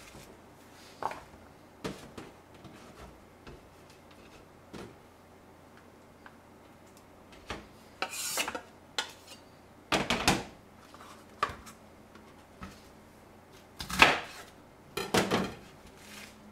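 Kitchen knife cutting napa cabbage on a small wooden cutting board: irregular knocks of the blade on the board with the crisp rustle of leaves. A few louder clatters come in the second half, the loudest about three seconds from the end.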